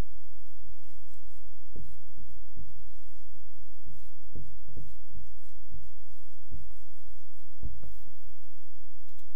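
Dry-erase marker writing on a whiteboard: a string of short, irregular strokes as the letters are drawn, over a steady low hum.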